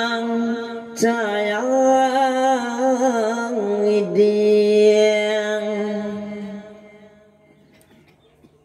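A Buddhist monk chanting Pali protective verses (paritta) in long, drawn-out held tones, his voice sliding slowly in pitch, then holding one note and fading away about seven seconds in.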